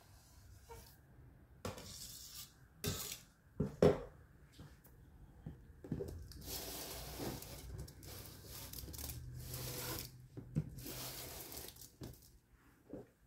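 Thin aluminium foil tray crinkling and crackling as hands handle its edges, in several stretches, with a few sharp clinks and knocks about three and four seconds in.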